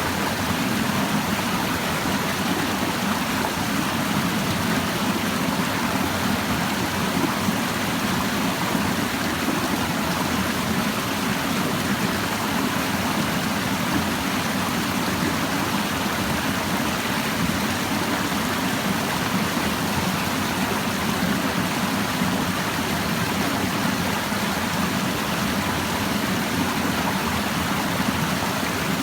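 Clear mountain stream babbling steadily over rocks.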